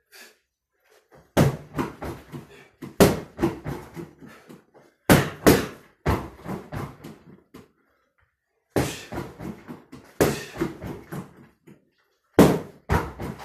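Boxing-gloved punches, hooks thrown from a cross-arm guard, thudding into a freestanding heavy bag. They come in about seven quick bursts of several hits each, a second or two apart.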